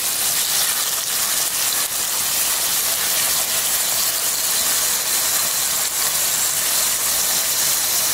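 Squid slices sizzling as they shallow-fry in hot oil in a pan: a steady hiss with fine crackling.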